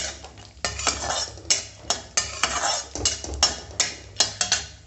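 A metal spatula scraping and knocking against a black riveted kadhai, about two or three strokes a second, as cashews and raisins are stirred while frying golden in ghee. The strokes stop near the end.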